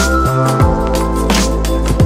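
Background music with a steady beat and held bass and keyboard notes.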